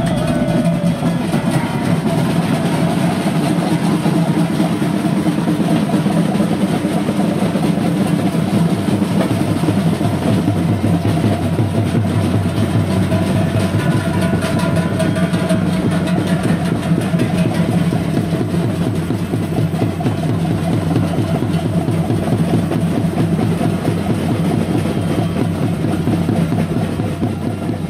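A group of large Swiss Trychel cowbells, hammered sheet-metal bells carried on shoulder yokes, being swung together as the bearers march. The result is a dense, continuous clanging din that starts to fade near the end.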